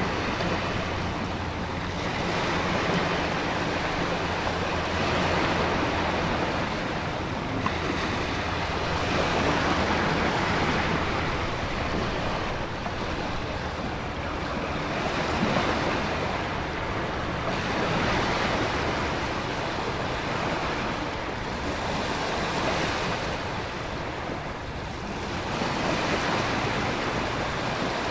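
Storm ambience: ocean waves surging and easing every few seconds over a steady wash of heavy rain and wind, with a low steady rumble underneath.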